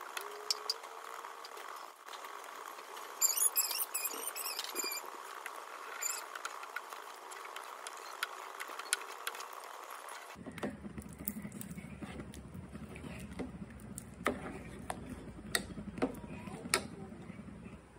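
Wooden spatula stirring thick porridge in an aluminium pot: scattered knocks and scrapes against the pot. There is a short run of high squeaks about three seconds in, and a steady hiss that gives way to a lower background about ten seconds in.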